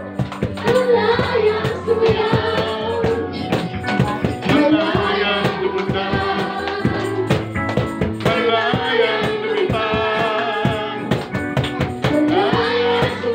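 Live worship music: a band plays with steady sustained keyboard and bass notes and regular drum hits, while voices sing a melody over it.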